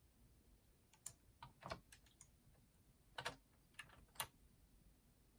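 Faint, irregular clicks and taps of small plastic and metal parts being handled on a boombox cassette mechanism, about eight of them in the first four seconds or so.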